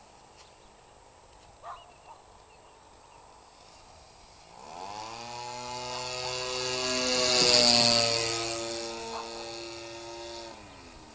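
Giant-scale RC airplane's 25cc engine, converted from a Cub Cadet (Stihl) string trimmer, flying past: faint at first, then growing louder with its pitch rising from about four and a half seconds in, loudest about eight seconds in, then its pitch drops and it fades near the end.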